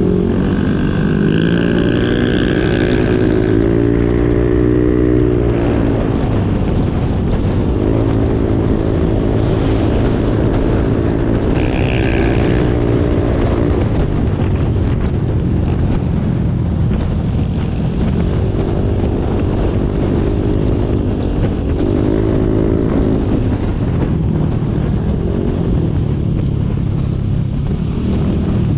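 Motorcycle engine running while riding, with wind rushing over the microphone; its pitch rises and falls in stretches as the throttle opens and closes.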